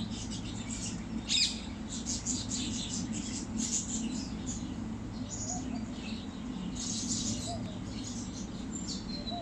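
Small birds chirping and twittering, many short high calls scattered throughout, one louder call about a second and a half in, over a steady low background hum.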